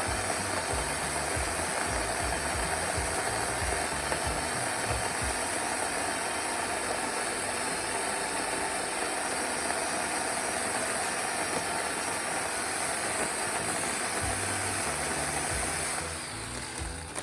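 Remington Ranger II electric pole chainsaw running steadily with a high motor whine, cutting into dead ash limbs, and easing off about a second before the end.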